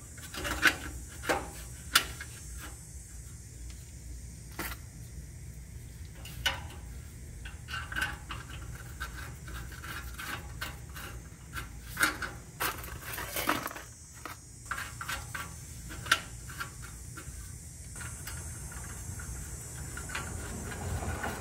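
Scattered metallic clinks, taps and rattles as a steel exhaust heat-shield bracket and flanged bolts are positioned and threaded in by hand against the exhaust pipe, over a low steady hum.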